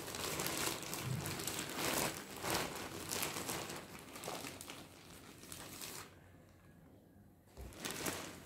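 Clear plastic garment bag crinkling as a folded fleece top is handled and drawn out of it, in irregular crackly rustles. The crinkling dies down about six seconds in, with one short rustle near the end.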